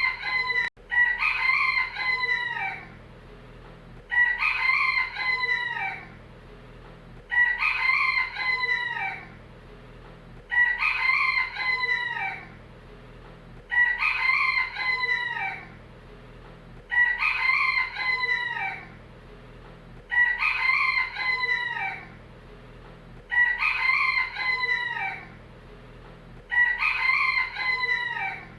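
Rooster crowing, the same cock-a-doodle-doo repeated over and over, about one crow every three seconds, each lasting about two seconds.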